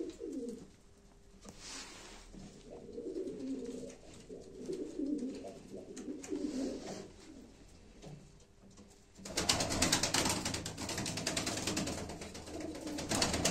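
Domestic pigeons cooing, low repeated coos that come and go. About nine seconds in, a loud crackling, rustling noise starts suddenly and carries on over the coos.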